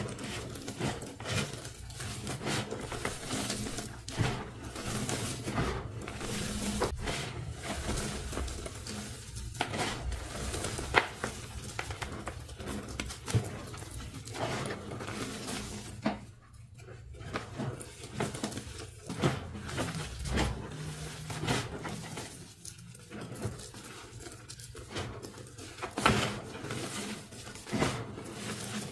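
Hands crushing and sifting crumbled dyed gym chalk: gritty crunching and rustling of chalk lumps and powder, with irregular small crackles as pieces break.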